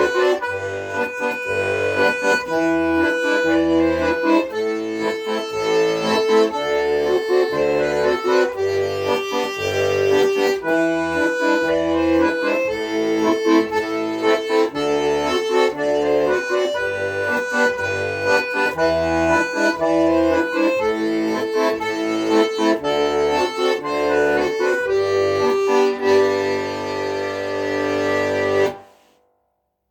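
Accordion playing a melody over a pulsing bass accompaniment, closing on a long held chord that stops abruptly near the end: the final bars of the piece.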